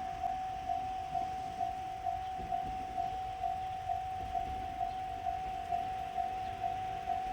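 Japanese railway level crossing's electronic warning bell ringing, one steady tone struck evenly about twice a second, warning that a train is approaching.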